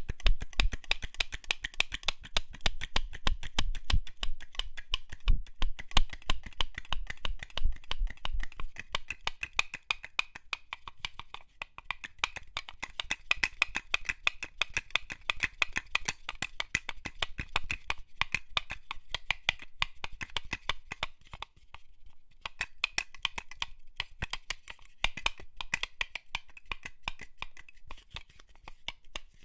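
Office pins being handled in their box: a dense stream of tiny metallic clicks and ticks, with low knocks against the box during the first few seconds, thinning slightly after that.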